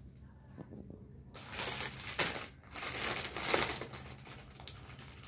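Plastic packaging around a folded dress crinkling and rustling in irregular surges as the packed garment is handled and unwrapped, starting about a second and a half in.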